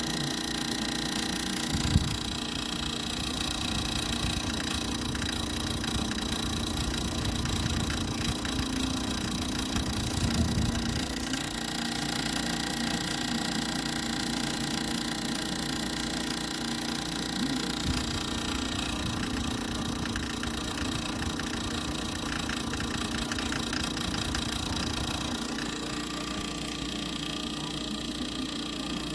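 Small HEPA air purifier's fan motor running steadily with a constant hum and whine, with a sharp knock about two seconds in.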